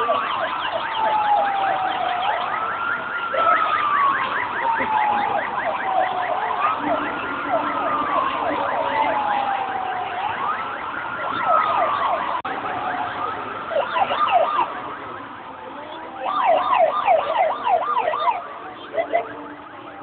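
Convoy escort sirens: one wails in slow rises and falls about every four seconds, and a fast-warbling yelp sounds over it, strongest a few times in the second half. The sirens grow quieter near the end.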